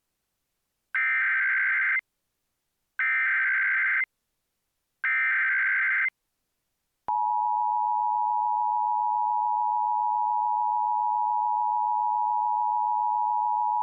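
Emergency Alert System SAME header: three one-second bursts of digital data screech about a second apart, then the steady EAS two-tone attention signal starting about seven seconds in. Together they mark the start of an emergency alert, here an AMBER Alert for a child abduction.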